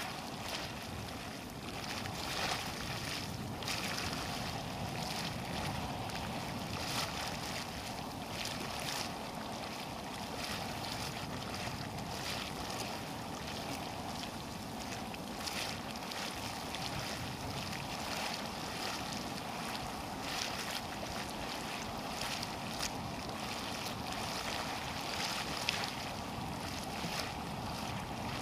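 Steady outdoor rushing of wind, with irregular brief gusts buffeting the microphone.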